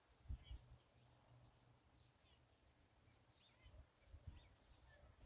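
Common starling singing faintly from a treetop: a string of high whistles, several sliding down in pitch. A few low thumps come and go, about a third of a second in and again around four seconds in.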